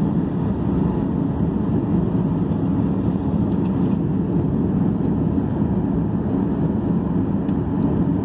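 Cabin noise inside a Ryanair Boeing 737 taxiing on the ground: a steady, even, low rumble from the jet engines and the airframe.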